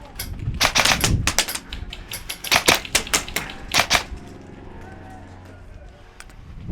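Airsoft guns firing: a quick run of sharp pops and clicks, densest in the first four seconds, then thinning to a few faint ticks.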